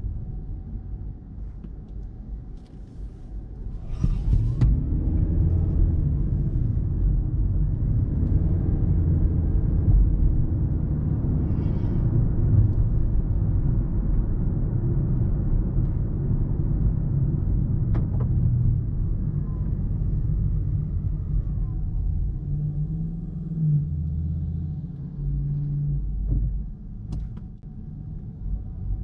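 A 2022 Toyota Prius AWD-e driving on the road: a steady low rumble of tyre and road noise. The rumble swells about four seconds in, and a few brief clicks stand out.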